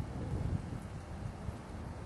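Wind buffeting the microphone outdoors: an uneven low rumble with a slightly stronger gust about half a second in.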